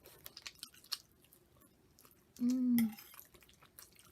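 Close-up mouth sounds of someone eating chicken and Alfredo pasta: wet chewing with many small smacks and clicks, broken about halfway through by a short hummed voice sound.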